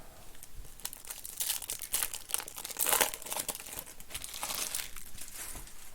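Plastic or foil wrapping of trading card packs crinkling and tearing as the packs are opened, in irregular bursts that are loudest about three seconds in.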